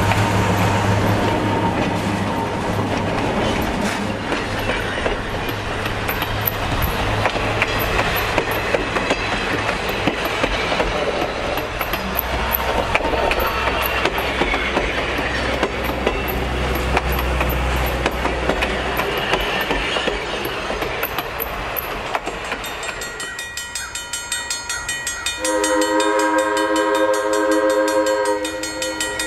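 General Electric 80-ton diesel switcher and its coaches passing close by, the diesel engine running and the wheels rolling on the rails. Near the end the locomotive's horn sounds from a distance, a chord of several tones held for about three seconds.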